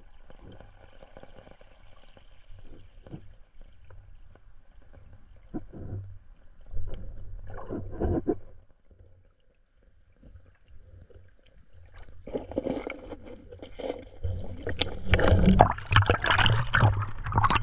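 Muffled underwater sound from a camera held in a shallow rocky stream: a low rumble with scattered knocks and bumps, turning much louder and busier with gurgling water noise in the last few seconds.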